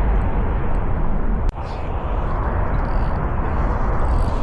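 Wind buffeting the microphone: a steady low rumbling noise, with one sharp click about a second and a half in.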